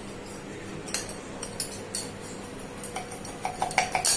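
A metal spoon clinking against a glass while stirring coffee and sugar together: a few separate clinks at first, then a quicker run of clinks near the end.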